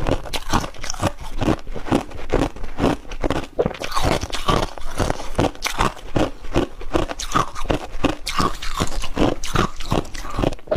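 Close-up crunching and chewing of freezer frost: rapid, dense crunches several times a second as mouthfuls of the frost are bitten and chewed.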